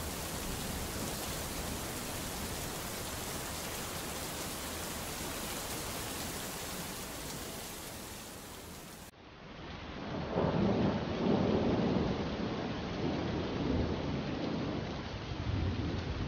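Steady hiss of background noise. About nine seconds in it changes abruptly to a louder, uneven, duller noise.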